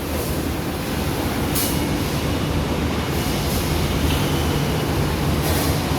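Roof-tile painting line machinery running steadily in the tile-drying section: a continuous low hum under broad mechanical noise, with short hisses about a second and a half in and again near the end.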